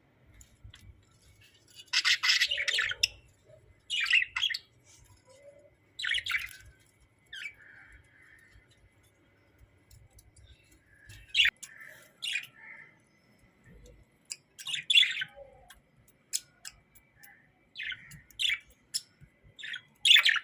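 Hagoromo budgerigars chirping and squawking in short, separate calls every second or two, the loudest burst of chatter about two seconds in.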